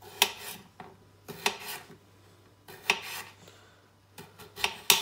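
A kitchen knife slicing through small salad potatoes, each cut ending in a sharp click of the blade on a hard chopping board; about seven or eight cuts at an uneven pace.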